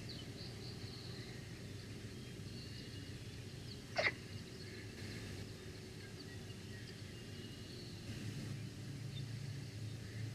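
Bald eagle sneezing once, a short sharp burst about four seconds in, over faint songbird chirps and a steady low hum.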